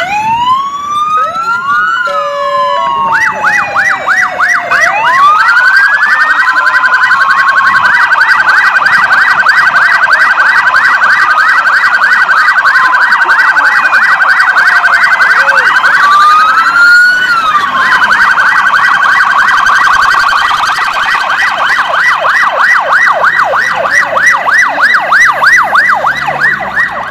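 Several police car sirens sounding at once. Slow rising and falling wails open, then a fast repeating yelp starts a few seconds in and carries on, with further wails rising and falling over it.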